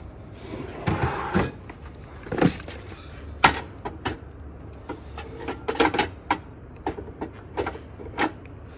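A series of short, sharp knocks and clicks at uneven spacing, some in quick pairs, over a steady low hum.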